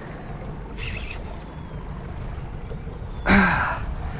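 Wind buffeting the microphone and water slapping around a small boat on open salt water, a steady low rumble. A short, faint huff about a second in and one short, loud burst about three seconds in.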